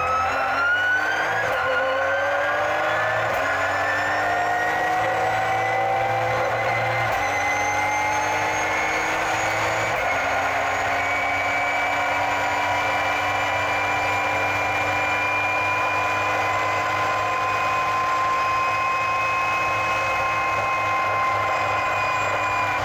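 Nissan GT-R GT3's twin-turbo VR38 V6 heard from inside the race car's cabin, accelerating hard with the revs climbing through several upshifts, then held steady at high revs flat out; the pitch begins to fall right at the end.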